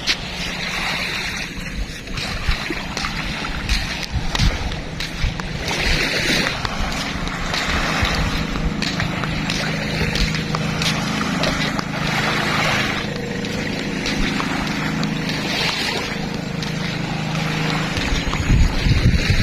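Sea waves sloshing and splashing at the shore. A steady engine drone runs underneath for most of the stretch and fades out near the end, with faint voices mixed in.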